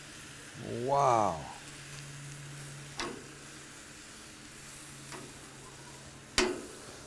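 Marinated char siu pork sizzling steadily on a hot grill, with a couple of sharp clicks about 3 and 6.5 seconds in.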